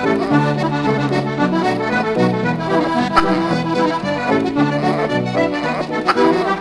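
Background music: a melody of held notes over chords.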